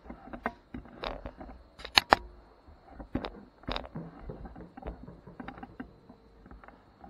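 Handling noise: a run of small clicks, taps and rustles, with two sharp clicks about two seconds in.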